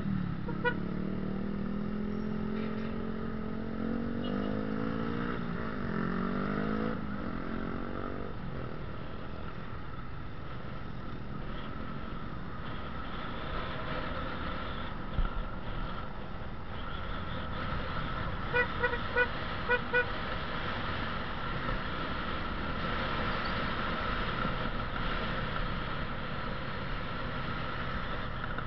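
Motorcycle engine pulling away and rising in pitch through the gears, with a shift about six seconds in, then running steadily with road and wind noise. Short horn beeps sound at the start, and a quick run of five horn toots comes about two-thirds of the way through.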